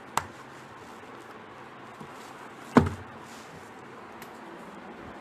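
Small wallets being handled on a wooden table: a sharp click just after the start and a louder knock a little under three seconds in, over a steady faint hiss.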